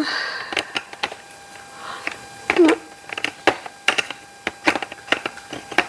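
Hard plastic parts of a Dyson V7 cordless vacuum clicking and knocking together in irregular taps as pieces are tried for fit, with a brief murmured voice about midway.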